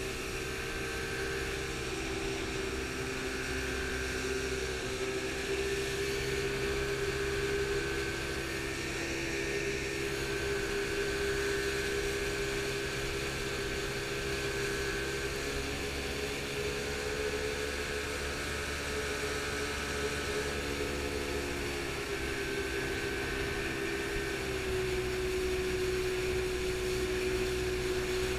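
Jet boat engine running steadily under way upriver, a constant drone that rises and falls a little in pitch, over the rush of water and wind.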